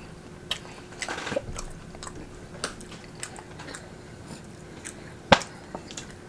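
Close-miked mouth sounds of a person chewing a mouthful of rotisserie chicken: scattered wet clicks and smacks, with one sharper click about five seconds in.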